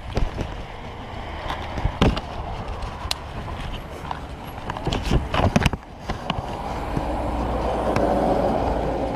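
Irregular clicks and knocks of bike gear and equipment being handled, then a vehicle passing on the road: a smooth rushing noise that rises to a peak and fades.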